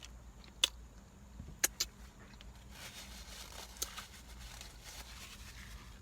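Close-up eating sounds: chewing a breakfast biscuit sandwich, with a few sharp mouth clicks. A faint low hum runs underneath.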